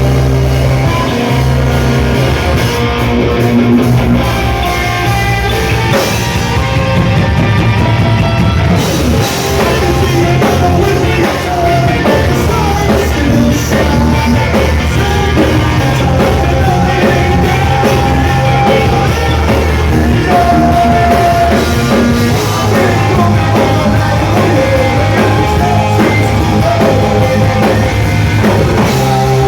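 Live rock band playing loudly, with electric guitar, bass and a drum kit under a singer's voice.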